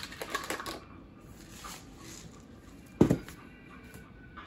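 Dry rolled oats shaken from a cardboard canister into a glass mixing bowl, a few light rattles and clicks in the first second, then a single sharp thump on the table about three seconds in.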